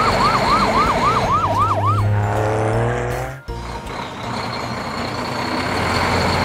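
Cartoon emergency-vehicle siren in a fast yelp, about three or four rise-and-fall sweeps a second, cutting off about two seconds in. After it comes a steady, noisy vehicle rumble with a low hum.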